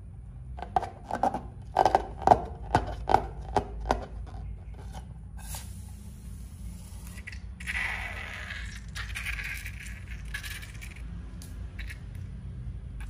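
About eight sharp clicking taps in quick succession over the first few seconds. Later, a hissing, squelching rush as thick slime is squeezed out of a rubber balloon's neck onto a plate of slime.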